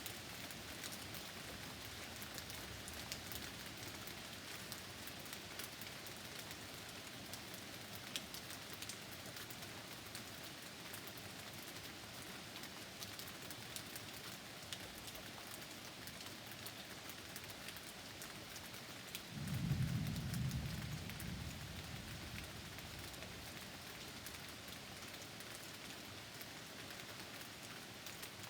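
Steady rain falling during a thunderstorm, with a single low thunder rumble that starts suddenly about two-thirds of the way in and fades over a few seconds.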